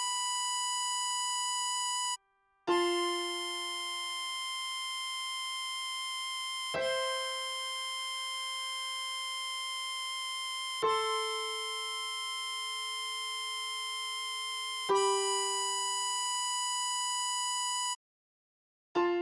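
Synthesized keyboard-like music: held chords, each struck sharply and sustained, changing about every four seconds. The sound drops out briefly twice.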